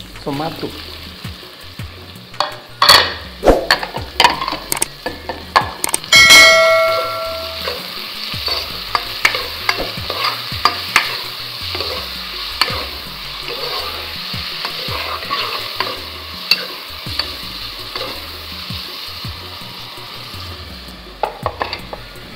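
Onions and chopped tomatoes frying in oil in a pot, sizzling steadily, while a spoon stirs and knocks against the pot. A sharp ringing metallic clang comes about six seconds in.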